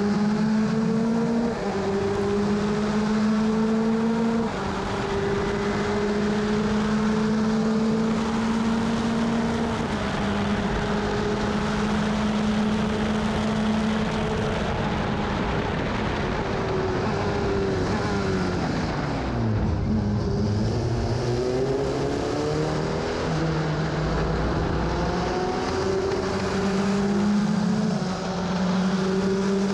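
Onboard engine of an F2000 open-wheel race car at race pace, with wind noise: the engine note holds a nearly steady pitch, stepping slightly, then a little past two-thirds of the way through it falls steeply as the car brakes and downshifts, and climbs again as it accelerates.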